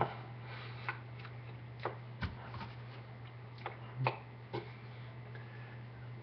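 A few short taps and knocks of hands meeting the chest and shirt during hand movements, over a steady low electrical hum.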